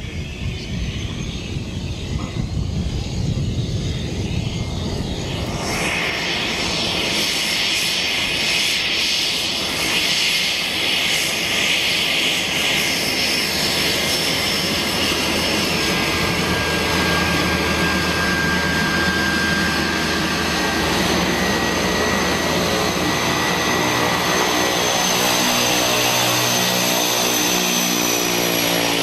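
Cessna Caravan single-engine turboprop taxiing close by: a steady high-pitched turbine whine over the propeller's drone. It grows louder as the aircraft comes near, with the whine setting in about six seconds in.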